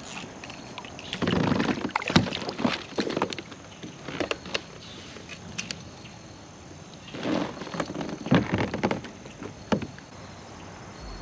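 Water splashing in short, irregular bursts, with sharp clicks and knocks in between.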